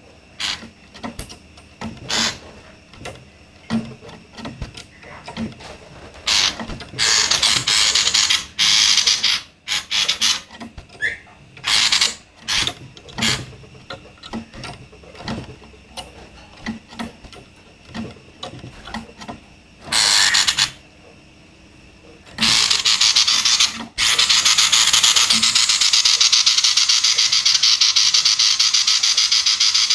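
Female common iora (sirtu) giving harsh, rasping 'konslet' calls: scattered short clicks and chips, then longer rattling bursts, running into a continuous harsh rattle about two-thirds of the way in.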